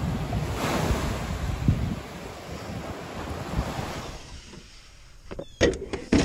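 Small waves washing onto a sandy beach, with wind buffeting the microphone. Near the end the surf gives way to a few sharp clicks and knocks.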